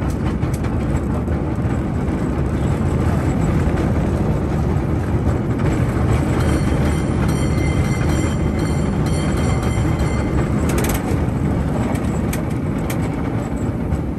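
San Francisco cable car running along its rails, a steady rumble and rattle of the wheels and the cable in the slot beneath. A high steady squeal sounds for a few seconds a little past the middle, followed by a few sharp clanks.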